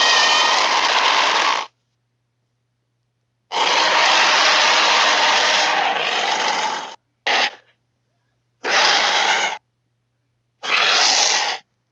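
Cryolophosaurus dinosaur roar sound effects: a run of raspy, hissing roars cut apart by dead silence. A long one ends early on, another runs about three and a half seconds, then comes a very short one, and two of about a second each near the end.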